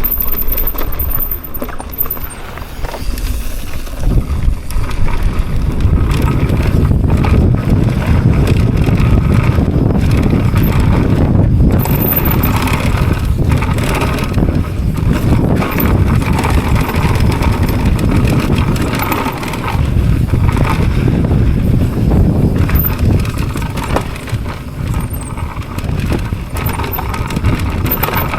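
Mountain bike ridden fast down a rough dirt trail: a steady rushing of wind and tyres, with knocks and rattles as the bike hits bumps. The noise dips briefly about three seconds in.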